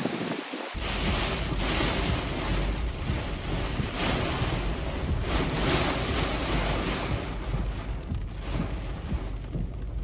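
Hurricane-force wind gusting and easing, with heavy low rumble of the wind buffeting the microphone from under a second in.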